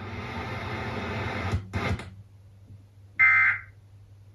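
Broadcast hiss that cuts off with a couple of clicks about two seconds in. After a short pause, one half-second buzzing burst of Emergency Alert System SAME digital data tones sounds near the end, one of a regularly spaced series of identical bursts that encode an alert.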